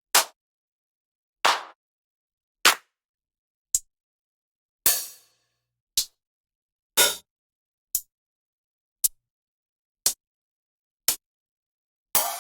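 Electronic drum one-shot samples played one at a time, about one a second, each a short dry hit with silence between. The first few are house-style hand-clap samples, and the rest are closed hi-hat samples. Just before the end a cymbal hit starts ringing.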